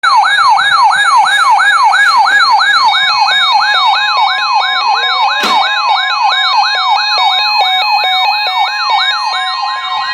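Electronic siren yelping fast, about three pitch sweeps a second, over a steady high tone. From about halfway through, a second siren rises slowly in pitch underneath it, with a sharp knock near the middle.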